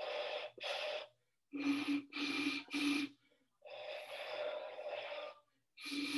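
Hollow, breathy hoots from blowing across the mouths of two plastic bottles, one half-filled with water and one empty. The half-filled bottle gives the higher note and the empty one the lower: two short high hoots, then three short low ones, then a long high hoot, with a low hoot starting near the end. The smaller air space in the half-filled bottle is what raises its pitch.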